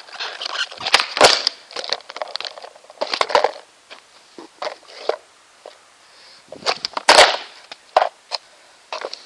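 A series of sharp wooden cracks and slaps: a cracked skateboard deck being stomped and slammed against paving stones to finish breaking it. The loudest cracks come about a second in and about seven seconds in, with smaller knocks between.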